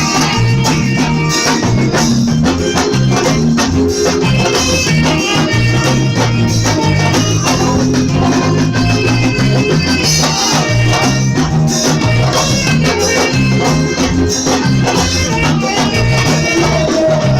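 Instrumental band music with a steady beat: guitar over a moving bass line, with shaker-type percussion.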